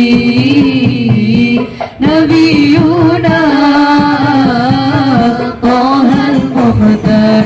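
A woman singing a sholawat (Islamic devotional song) in long, ornamented, wavering phrases over percussion accompaniment, with a short breath break about two seconds in.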